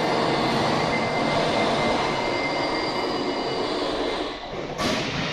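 Factory machinery running with a steady loud noise and a faint high whine, easing off a little about four seconds in, then a short burst of noise near the end.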